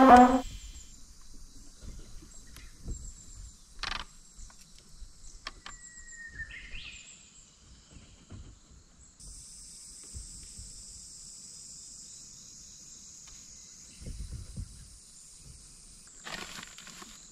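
Insects singing in a steady high-pitched drone that grows louder about nine seconds in, with a short rising bird chirp around six seconds and a few soft knocks from the boat and tackle, the last cluster near the end.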